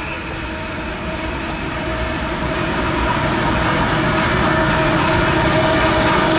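Diesel locomotives of an approaching CSX freight train running, their engine sound growing steadily louder as the train nears.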